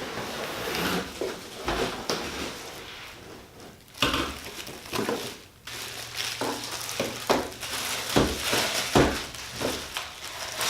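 Packaging rustling and crinkling with irregular knocks and clatters of plastic parts being handled, as a stick vacuum's pieces are unpacked from their box.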